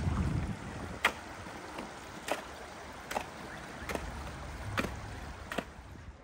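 Footsteps crunching on snow, six steps about a second apart, over a low wind rumble on the microphone.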